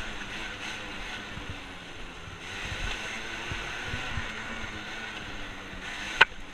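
Small off-road vehicle engine running under throttle while riding over a rough dirt and grass trail, with wind rushing over the microphone. A single sharp knock near the end.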